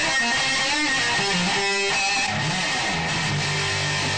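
Electric guitar music with strummed chords. A little past halfway, held low notes come in underneath.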